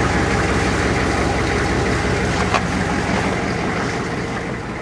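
Rollback tow truck's engine running steadily, a constant low drone.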